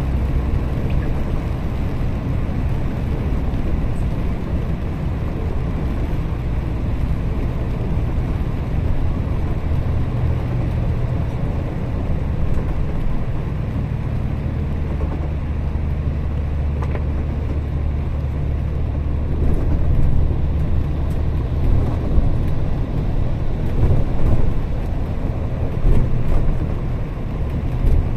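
Inside a moving double-decker bus on a wet road: a steady engine drone and tyre noise, with several louder bumps in the last third.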